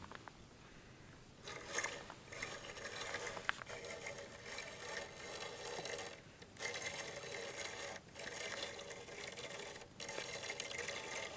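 Fishing reel cranked steadily, its gears whirring as lead core line is wound in against a hooked rainbow trout. It starts about a second and a half in and breaks off briefly three times, near six, eight and ten seconds in.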